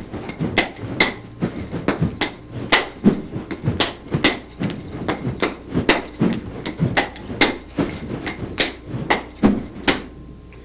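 Nunchaku swung fast through outward strikes, catches under the arm and arm switches: a quick run of sharp clacks and slaps, about two to three a second, stopping about a second before the end.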